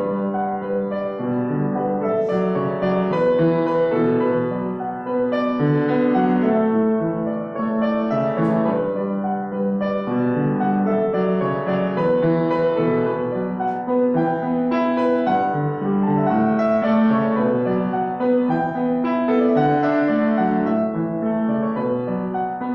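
Solo piano playing sustained chords under a melody, the notes changing every second or so at an even pace.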